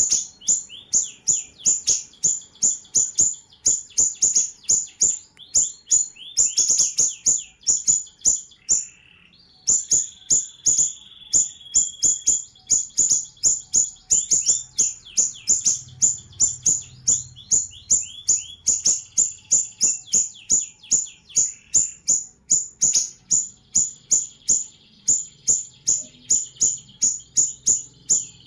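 A siri-siri bird singing a fast, steady string of sharp, high chirps, about four a second, with lower down-slurred notes woven underneath; the song breaks off briefly about nine seconds in, then carries on.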